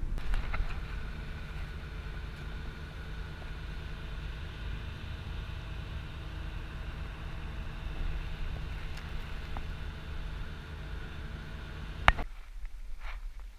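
Ferry engine running with a steady drone made of several even tones, heard from the open deck. About twelve seconds in there is a sharp click and the drone stops abruptly.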